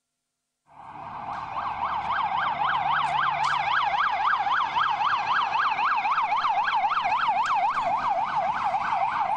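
Red Crescent ambulance siren sounding a fast yelp, its pitch sweeping up and down about four times a second; it starts suddenly under a second in.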